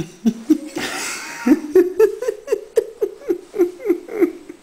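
Someone laughing hard in a quick run of short "ha" bursts, about four a second, each falling in pitch, starting about a second and a half in.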